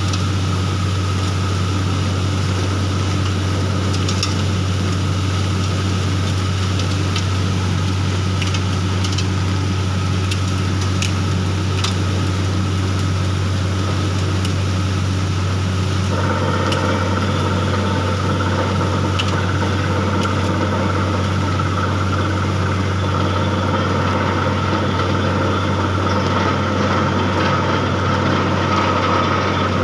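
Borewell drilling rig running steadily, its engine and compressor giving a deep, even drone while water and cuttings are blown out of the bore. About halfway through, higher tones join the drone and hold to the end.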